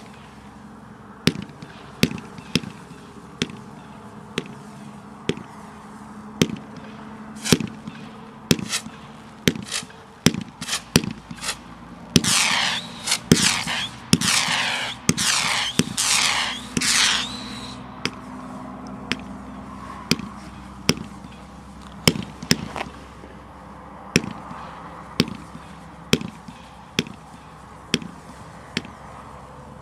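A Motor Mouth consumer firework cake firing a string of shots, with sharp reports every half second to a second. A louder, denser flurry of about five seconds comes in the middle.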